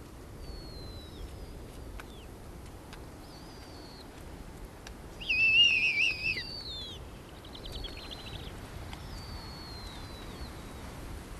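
Snowy owl owlets calling at the nest: thin, high, falling whistles every second or two, and about five seconds in a louder wavering squeal lasting about a second, followed shortly by a quick rattling chatter.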